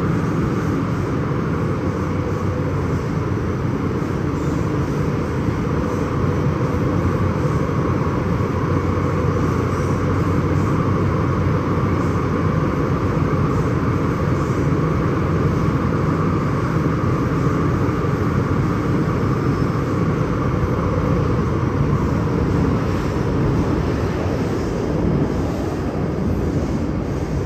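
MTR M-Train electric multiple unit running between stations, a steady rumble of wheels on rails and running gear.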